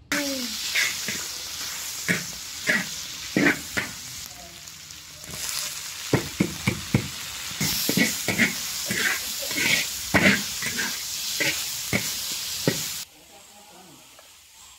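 Flowers and diced dried beef sizzling in hot oil in a wok, with a metal spatula scraping and knocking against the wok over and over as they are stir-fried. The sizzling cuts off suddenly near the end.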